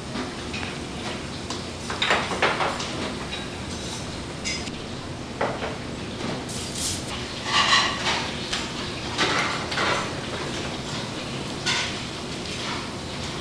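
Cutlery and dishes clinking and knocking now and then at a meal table, some strikes ringing briefly, over steady background noise.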